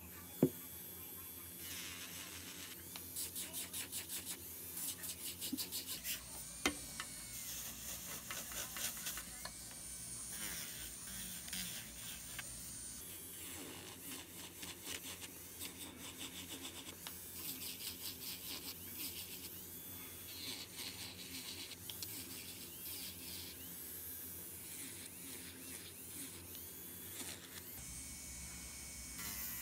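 Electric nail drill with a callus-removal bit sanding hardened skin around a fingernail: a high-pitched gritty whirr in passes that stop and change every few seconds. A sharp click about half a second in is the loudest sound, with another near seven seconds.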